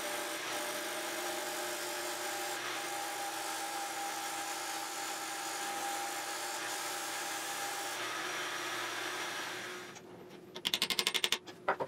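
Disc sander running while a small block of curly maple is held against the spinning abrasive disc, grinding an angle onto it. The sanding stops about ten seconds in, and is followed by a quick rattle of small wooden clicks as the tapered tusk is pushed into its mortise.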